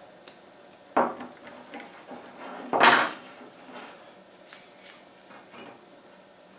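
Cutters snipping through an electrical power cord to cut its end off: a lighter click about a second in, then a sharp snip near three seconds in, amid soft handling of the cord.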